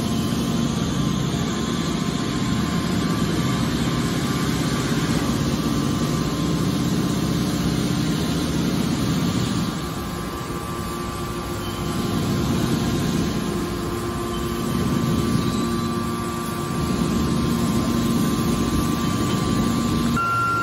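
Hydraulic scrap metal baler running: its hydraulic pump and motor give a steady mechanical drone with a faint hum while the rams compress scrap into a bale and push it out. The noise eases briefly about halfway, then returns.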